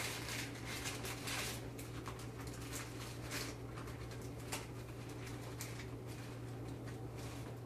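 Parchment paper rustling and crinkling in short, irregular bursts as a sheet of soft dough is rolled up in it by hand, over a steady low hum.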